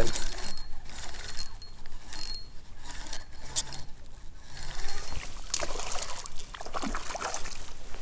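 A spinning reel being cranked in short spells with a thin high whine as a hooked trout is played, followed from about five seconds in by splashing as the fish thrashes at the surface.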